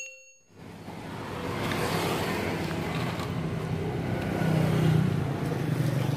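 Shimizu electric water pump running: a steady motor hum with an even hiss, building up over the first second or so and then holding.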